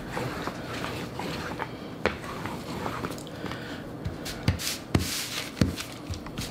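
A rolling pin working sugar dough flat on parchment paper, with soft rubbing and small clicks. About two-thirds of the way in come a few sharper knocks and a short burst of paper rustling.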